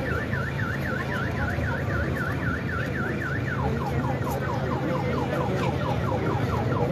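Electronic car alarm sounding, with a fast up-and-down warble that switches about three and a half seconds in to quick repeated falling chirps, about four a second, over a low steady rumble.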